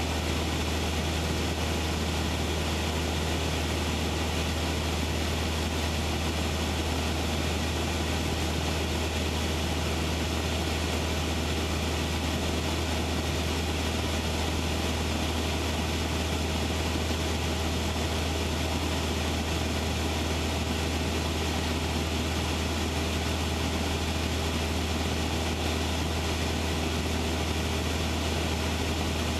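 Cessna 172's piston engine and propeller droning steadily in level flight, heard as cockpit cabin noise, with a strong low hum and no change in power.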